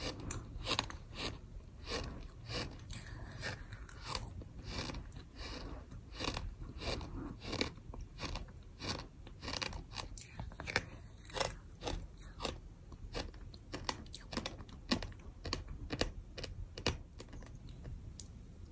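Sand being chewed and crunched between the teeth in a steady run of short, crisp crunches, a couple or so a second.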